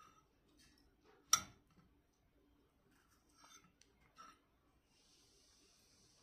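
Cutlery tapping and scraping on a plate while eating, a few short sharp knocks with one louder clack about a second in. A faint steady hiss comes in near the end.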